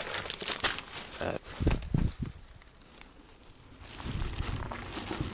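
Plastic rubbish bags and bread wrappers crinkling and rustling in irregular handfuls as a hand rummages through a bin. From about four seconds in, a steady low outdoor rumble comes in.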